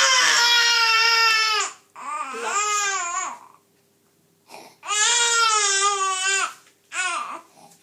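Baby of about five months crying in long, high-pitched wails: two cries, a second-long pause about halfway, then one more long cry and a short one. It is a tired baby crying as he is being got off to sleep.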